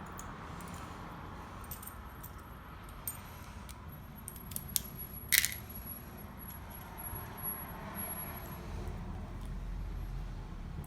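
Small metal lock parts clicking and clinking as a mortise cylinder is rekeyed, with one louder ringing clink about five seconds in, over a low steady hum.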